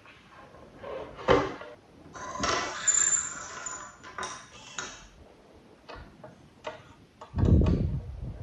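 Handling noises from tools and small parts: scattered clicks and taps, a rough scraping stretch of about two seconds in the middle, and a heavier knock near the end.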